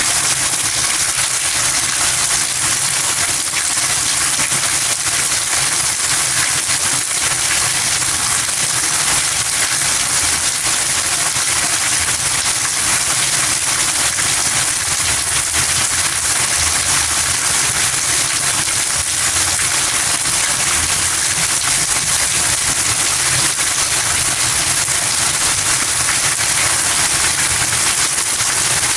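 Steady rain: a dense, even hiss of falling drops with fine crackling patter.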